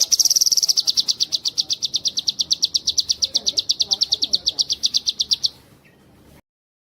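A cucak kinoi songbird singing one long, fast, high-pitched trill: a brief held note, then about ten evenly repeated notes a second for some five seconds, stopping suddenly.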